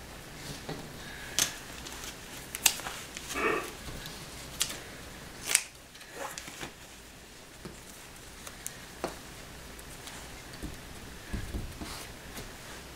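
Scissors snipping self-adhesive drywall patching tape, about four sharp snips in the first half, with brief rustling of the tape being handled and a few lighter ticks later.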